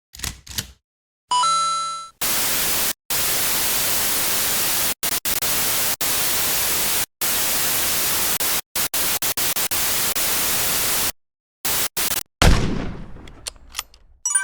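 A string of video-editing sound effects: a few quick clicks, a short ringing chime, then a long stretch of loud static-like hiss chopped by sudden cut-outs, and a heavy boom-like impact that dies away over a couple of seconds.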